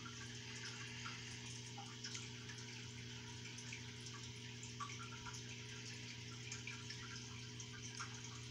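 Aquarium water bubbling and trickling faintly, with small irregular drips, over a low steady hum.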